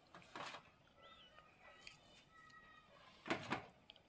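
Faint handling sounds of a plastic heart-shaped cookie cutter being pressed through soft biscuit dough on a stone counter: two brief, soft rustling scrapes, the louder one near the end.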